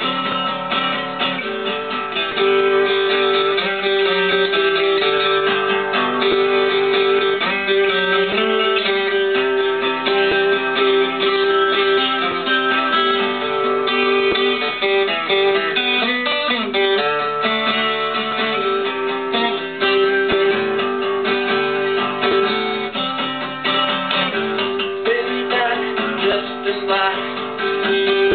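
Acoustic guitar playing an instrumental blues passage, with one steady note ringing under much of it.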